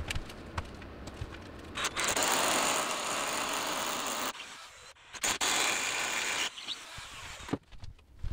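Handheld cordless power tool run in two bursts working on a wooden batten, one of about two and a half seconds, then after a pause one of about a second. Scattered knocks and clatter of wood around them.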